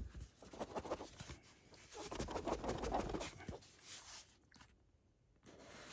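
Handling of a cloth-covered cardboard box: a tap, then card scraping and rubbing against card as the fabric outer box is slid off the inner card box, loudest in the middle before it goes quiet.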